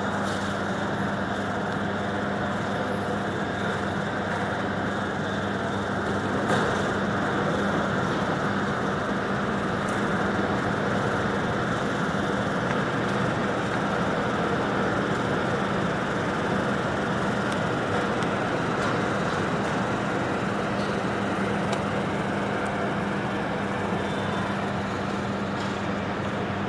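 Mercedes-Benz Citaro city bus running at low speed as it pulls in, with a steady low engine hum and the even drone of bus traffic around it. A single brief knock comes about six and a half seconds in.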